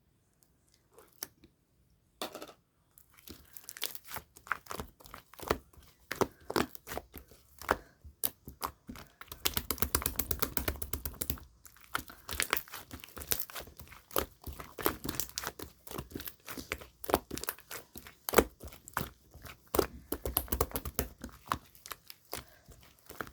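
Clear slime being squeezed, pressed and stretched by hand, making rapid wet clicks and crackling pops. It starts after a couple of quiet seconds and thickens twice into spells of dense, continuous crackling.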